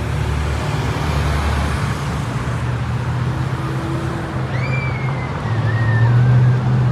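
Road traffic on a city street: a steady low car engine hum with tyre noise, growing louder about five and a half seconds in. A brief wavering whistle-like tone sounds over it shortly before that.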